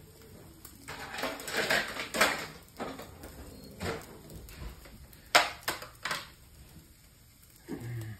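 Fork scraping and tapping against a food container while cutting a piece of French toast, with a few sharp clicks about four to six seconds in.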